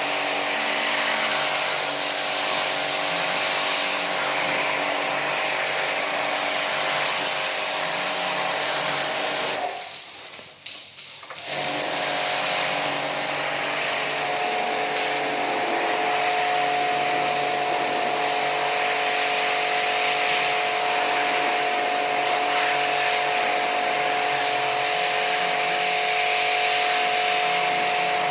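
Electric pressure washer running and spraying water: a steady motor whine over a spray hiss. It drops away for about two seconds about ten seconds in, then starts again.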